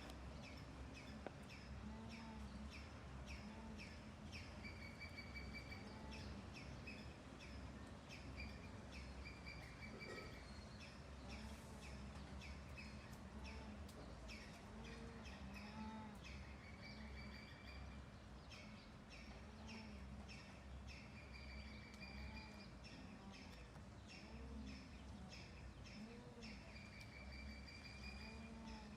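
Faint outdoor ambience of repeated short, high, bird-like chirps, several a second, with some held notes, over a steady low hum.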